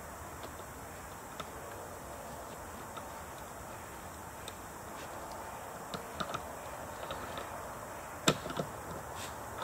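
Scattered light clicks and taps over a steady background hiss, with a sharper knock about eight seconds in.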